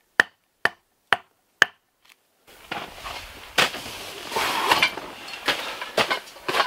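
A wooden baton striking tent stakes: four sharp knocks about two a second. Then, about two and a half seconds in, rustling and clattering as a folding camp cot is unfolded and handled inside a tent.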